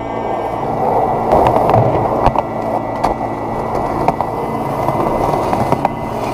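Skateboard wheels rolling on concrete pavement, a steady rumble broken by scattered sharp clicks.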